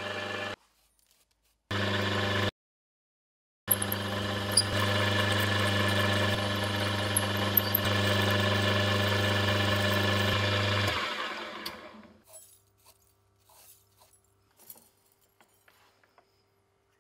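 Benchtop milling machine's motor and spindle running steadily as a twist drill bores into solid aluminium round stock, with a few sharp chip ticks; the sound breaks off twice and resumes, then winds down and stops about eleven seconds in. Afterwards only faint clicks and knocks as the drilled part is handled in the vise.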